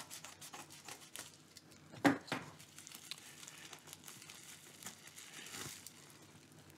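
Plastic bubble mailer crinkling and rustling as it is handled and pulled open, with one sharper crackle about two seconds in.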